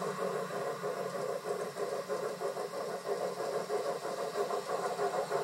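Large-scale garden-railway model train running along its outdoor track, a steady pulsing mechanical sound from the running locomotive and wheels on rail.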